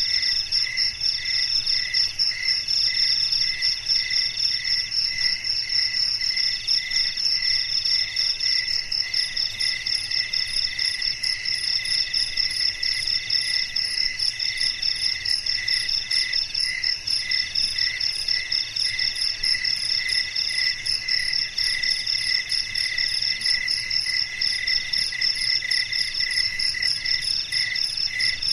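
Chorus of night insects trilling at several pitches throughout. One sings in pulses about twice a second, and a higher one in phrases of a second or two with brief breaks.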